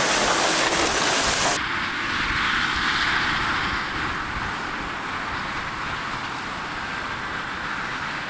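Heavy farm machinery running steadily: a continuous engine-and-machine noise that changes abruptly in character about a second and a half in.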